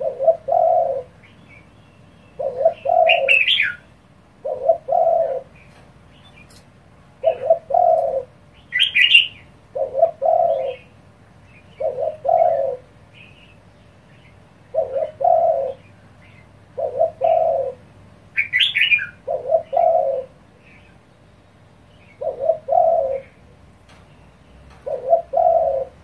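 Spotted dove cooing repeatedly: short, low coo phrases about every two seconds, around a dozen in all. A few brief higher chirps break in three times.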